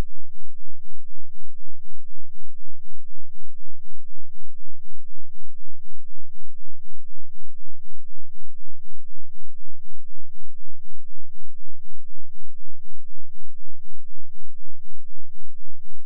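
2 Hz sine-wave bass test tone, a steady very deep throb whose level swells and falls evenly about four times a second.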